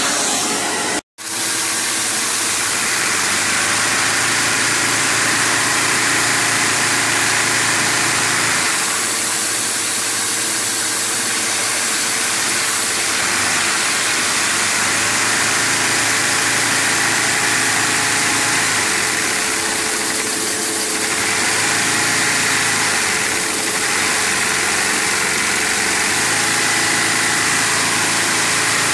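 Inline-six LEGO vacuum engine running at speed on a vacuum cleaner's suction, hose straight on the intake with no throttle: a steady rushing hum of the vacuum cleaner and the spinning engine, with a brief cut to silence about a second in.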